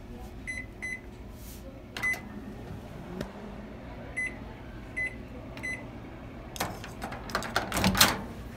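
Panasonic microwave oven running with a steady low hum, with six short high beeps, the last three evenly spaced. Near the end come clicks and clatter as the oven door is opened and the mug is handled.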